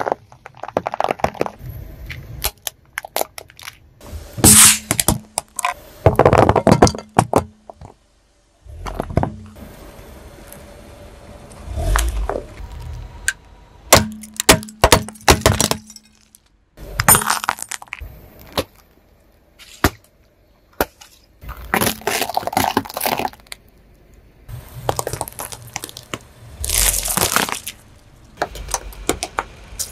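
A car tyre rolling slowly over objects on pavement and crushing them one after another: sugar cubes, plastic tubs of jelly and a soft green fruit. The sound is bursts of sharp cracks and crunches with squashing between, separated by short quieter pauses.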